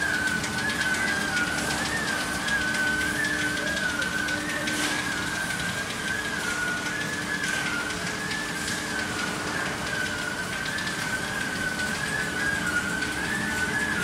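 Running polycarbonate sheet extrusion line: a steady machine noise with a continuous high whine that wavers slightly up and down in pitch, and a low steady hum that fades out about a third of the way in.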